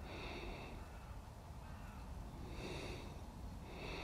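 A person breathing close to the microphone: three short, faint, hissy breaths, at the start, about two and a half seconds in, and at the end, over a steady low rumble.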